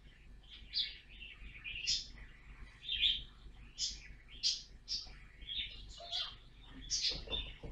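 Pet budgerigars chirping and chattering in a string of short, high chirps, about one or two a second.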